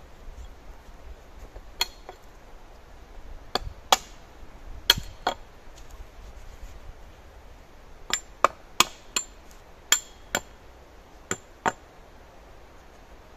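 Hand tool striking wood: about a dozen sharp knocks, uneven and often in pairs, with a quicker run of strikes in the second half.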